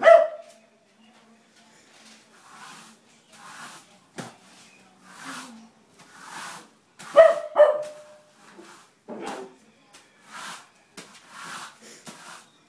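A puppy barking at a broom: one sharp bark at the start and two more in quick succession about seven seconds in. Between the barks, a broom sweeps a paved floor in repeated swishing strokes.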